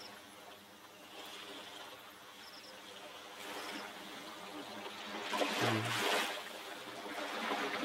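Faint trickling, lapping water, swelling a little about five to six seconds in.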